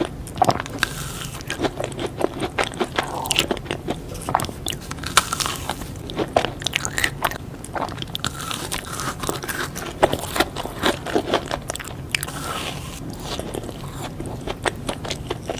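Close-up eating sounds of someone biting and chewing crunchy sweets, with rapid, irregular crunches that thin out near the end.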